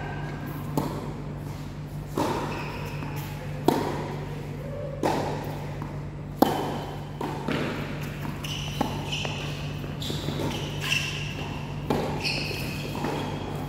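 Tennis ball being hit back and forth with rackets in a doubles rally: sharp pops about every second and a half, then more scattered hits, over a steady low hum.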